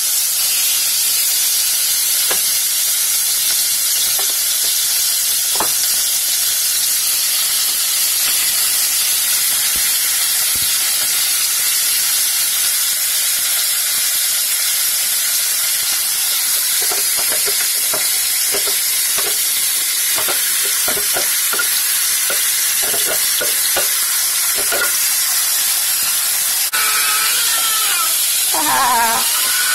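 Seasoned chicken pieces sizzling in hot vegetable oil in a nonstick pot: a loud, steady frying hiss. In the second half there is a run of light clicks and taps as the pieces are stirred with a spoon.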